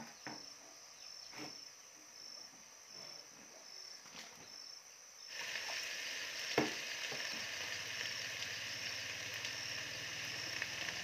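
Quiet handling clicks, then about five seconds in a steady sizzling hiss of cooking on the stove starts suddenly and holds, with a single knock of utensils about a second later.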